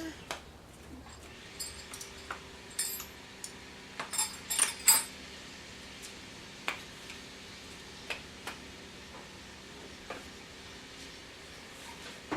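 Scattered light metallic clinks and taps of metal parts or tools being handled, loudest in a quick cluster about four to five seconds in, over a faint steady hum.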